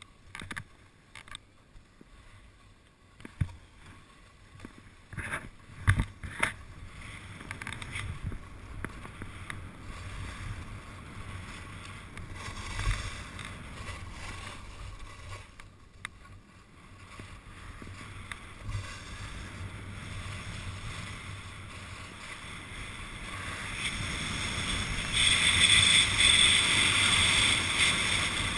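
Rossignol Soul 7 skis scraping and hissing over firm, wind-textured snow, with a few sharp clacks and knocks in the first several seconds. A rush of wind noise on the microphone builds over the last few seconds as the run picks up speed.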